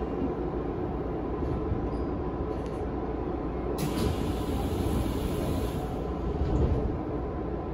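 Tokyu 5000 series electric train heard from inside the passenger car as it runs into a station and slows: a steady low rumble of wheels and running gear. From about four seconds in, a high hiss lasts about two seconds.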